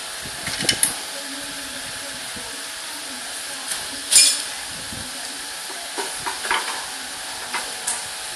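Light metal clinks and taps as a bolt and a new motorcycle rear shock absorber are handled and fitted into the frame, a few scattered strikes with the loudest about four seconds in, over a steady background hum.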